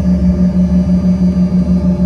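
Rolls-Royce AE3007 turbofans of an Embraer E135 droning at taxi power, heard from the cabin: a low hum at one steady pitch that pulses evenly several times a second. A fainter higher tone sits above it, over a low rumble.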